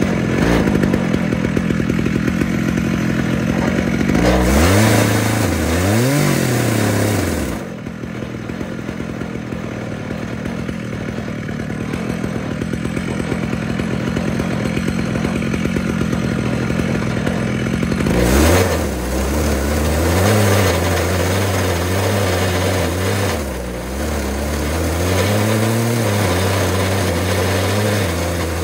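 Chainsaw on an Alaskan chainsaw mill running while ripping lengthwise through a green ash log. Its engine note rises and falls several times.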